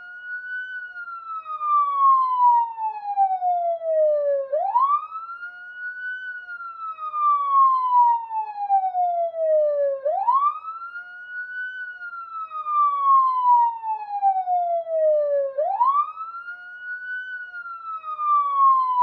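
Police siren on its wail tone: the pitch rises quickly, then falls slowly, in a cycle that repeats about every five and a half seconds, with three rises in all.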